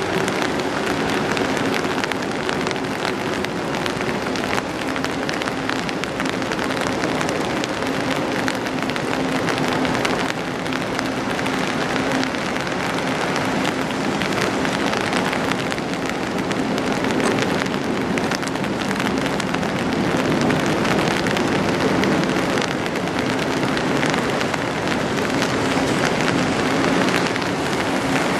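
Steady rain falling on an umbrella overhead, with a steady low hum underneath from the engines of the passing self-unloading bulk carrier.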